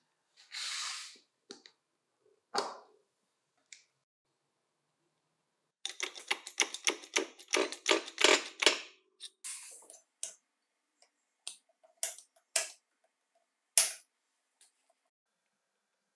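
Small steel gearbox parts of a circular saw being handled and pressed together on a workbench: scattered short metal clicks and knocks, a quick run of about four clicks a second from about six to nine seconds in while the helical gear and shaft are pressed into the aluminium bearing housing, and a single sharper knock near the end.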